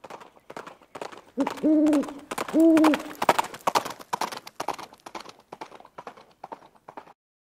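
Intro sound effect: an even clopping, about three or four strokes a second, like hooves at a walk, that cuts off shortly before the end. Two loud hooting calls, rising then falling, come about a second apart in the first few seconds.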